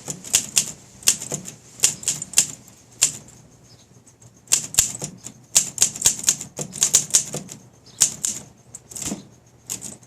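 1959 Olympia SM3 manual typewriter being typed on: uneven, sharp keystrokes of the typebars striking the platen, with a pause of about a second and a half a little after three seconds in.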